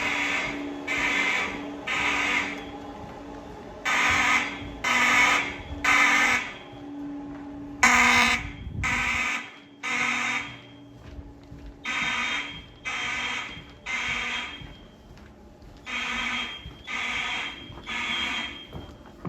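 Siemens mechanical fire alarm horns sounding the temporal-three evacuation pattern: three blasts of about half a second each, a second apart, then a pause, over and over.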